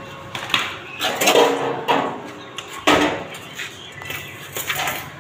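Stainless steel sheet-metal box clanking and rattling as it is handled and shifted by hand, with several metallic knocks that ring briefly, the sharpest about three seconds in.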